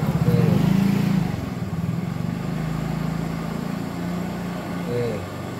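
An engine running steadily, loudest for the first second or so and then level.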